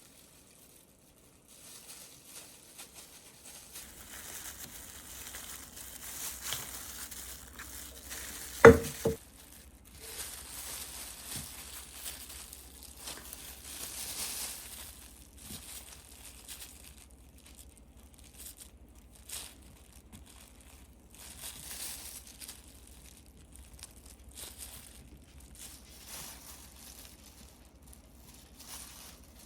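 Paper and cardboard rustling and crinkling on and off as they are handled, with one sharp knock about nine seconds in, over a low steady hum.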